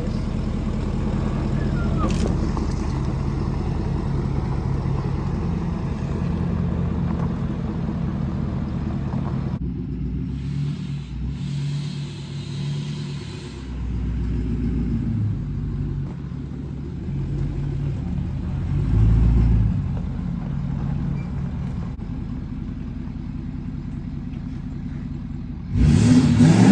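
Diesel pickup truck engines running, with a rev or two rising and falling partway through and a louder surge just before the end.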